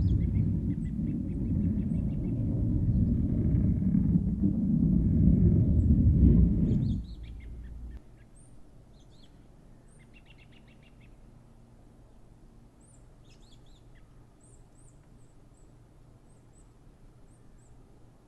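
A loud, low rumbling noise cuts off sharply about seven seconds in. It is followed by quiet outdoor ambience with small birds chirping now and then, including a short rapid trill.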